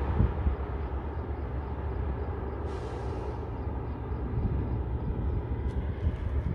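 Traffic on a highway: a steady low rumble of passing vehicles, mixed with wind on the microphone. A short hiss comes about three seconds in.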